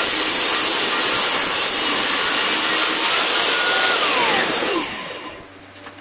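Table saw running and ripping a pine board, a loud steady noise; about four and a half seconds in it is switched off, a whine slides down in pitch and the noise falls away quickly as the blade winds down.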